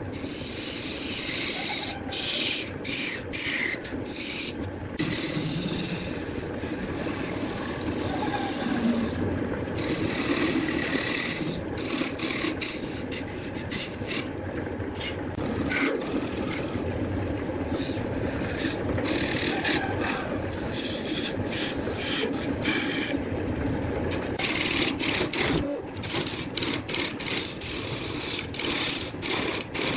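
Turning tool scraping and cutting wood spinning on a lathe: a continuous rasping scrape with many brief breaks.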